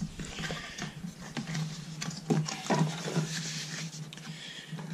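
Cardboard packaging being handled: a sleeve slid off a product box, with rustling, scraping and a few light knocks as the inner box is set down and opened.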